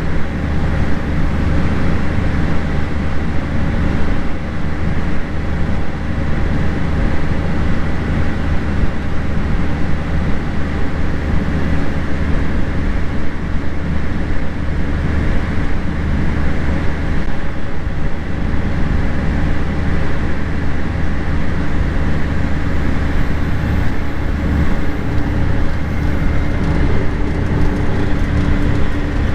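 Heavy farm machinery running steadily: a constant low engine drone with a steady hum above it, and no marked changes in speed or load.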